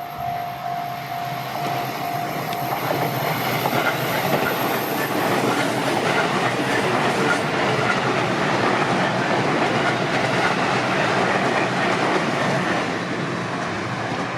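Electric train passing over a level crossing: the loud, rushing noise of wheels on rail with clickety-clack over the rail joints builds about three seconds in and stays loud for about ten seconds. A steady crossing-warning tone sounds at the start and is drowned out as the train arrives.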